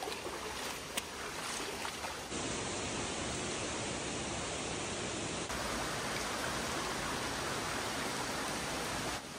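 Steady rush of falling water from a waterfall, growing louder from about two seconds in and shifting abruptly twice, with a few faint clicks before that.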